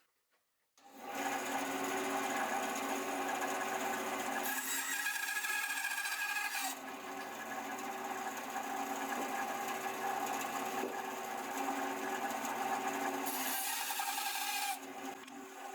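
A power tool working wood, running steadily after starting suddenly about a second in. Its tone shifts abruptly several times.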